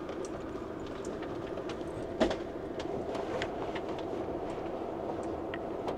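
Camper van creeping over a gravel lot, heard from inside the cab: a steady engine hum with scattered clicks and rattles, and one sharper knock about two seconds in.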